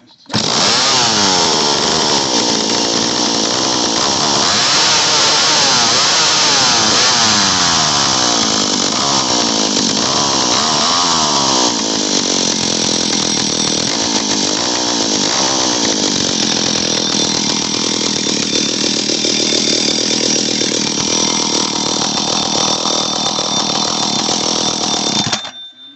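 Vintage McCulloch Super Pro 80 two-stroke chainsaw catching from a pull-start and running, revved up and down repeatedly, then settling steadier before it cuts off suddenly near the end. The owner judges it runs pretty well but might need carburetor adjustment.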